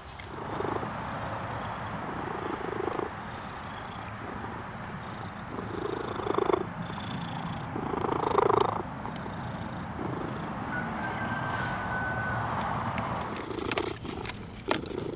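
Domestic cat purring close to the microphone while being scratched on the head, the purr swelling in pulses with its breaths.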